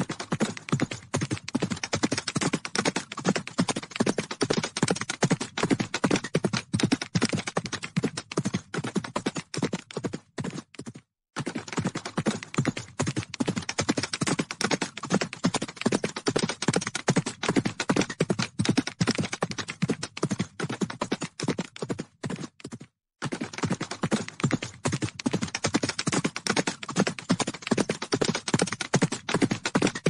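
Hoofbeats of a herd of horses galloping: a dense, continuous clatter of many hooves striking the ground. The sound cuts out briefly twice, about eleven and twenty-three seconds in, and then carries on.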